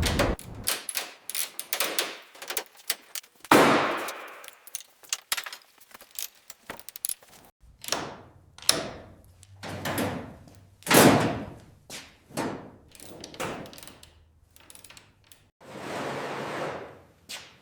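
Hand work on rusty metal: a run of sharp knocks, clinks and short scraping strokes, with a steady hiss for about a second and a half near the end.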